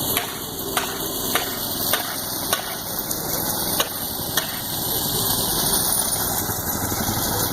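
An engine running steadily, with sharp, evenly spaced knocks about every 0.6 seconds that stop after about four and a half seconds.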